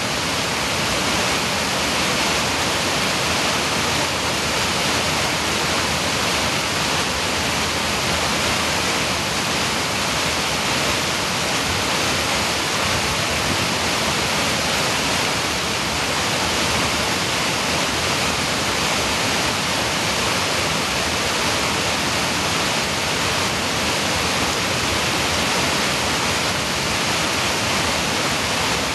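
Waterfall and white-water creek rushing loudly and steadily, a constant roar of falling water with no change.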